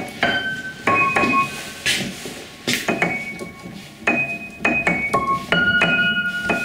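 Upright piano, its front panel removed and hammers exposed, played by hand: about a dozen notes and small chords struck one after another at an uneven pace, each left ringing.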